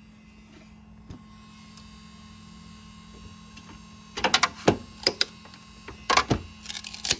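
A 3D-printed PETG carbon-fibre part being popped off the printer's build plate: a steady low hum, then from about four seconds in four quick bursts of loud cracking and snapping as the print breaks free of the plate.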